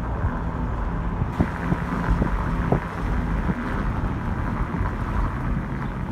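Wind buffeting the phone's microphone: a steady low rumble with a hiss over it and a few faint knocks.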